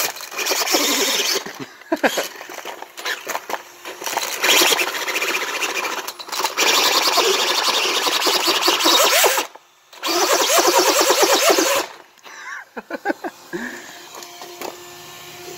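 RC buggy's 8200 kV brushless motor on a 3S LiPo, throttled hard in several long bursts for a burnout, its high whine mixed with tyres spinning and scrubbing on cement. The last burst cuts off about twelve seconds in, and a few quiet ticks follow.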